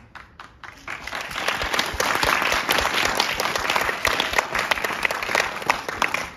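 Audience applauding: a few scattered claps at first, swelling into full applause about a second in and holding steady.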